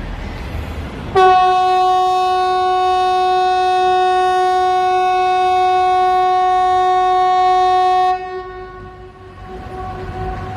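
Swedish outdoor public-warning siren ("Hesa Fredrik") sounding one steady, unchanging horn-like tone that starts abruptly about a second in and cuts off about seven seconds later. This is the seven-second blast of the warning-system test. After it stops, the same note carries on faintly for a few seconds.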